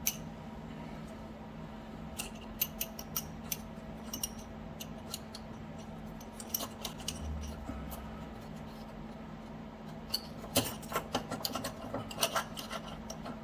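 Light metallic clicks and clinks in a few short clusters as the parts of a homemade bushing puller (a 3/8 bolt, washers and a drilled aluminium plate) are handled and fitted to press a polyurethane bushing in, over a faint steady hum.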